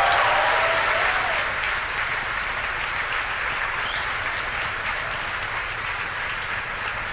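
Crowd cheering and applauding in reaction to the Falcon 9 max Q callout. A few whoops come in the first second, then steady applause that eases slightly.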